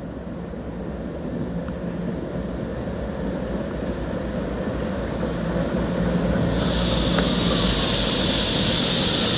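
Articulated electric tram approaching and passing close, wheels rumbling on the rails under a low steady hum, growing louder as it nears; a high steady hiss joins in about seven seconds in as it goes by.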